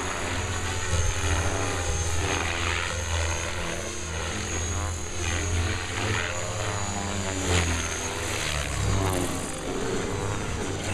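Compass Atom 500 electric RC helicopter in aerobatic flight: the main rotor's blade noise and the motor's high whine, rising and falling in pitch as it manoeuvres, until it sets down on the grass near the end with the rotor still spinning.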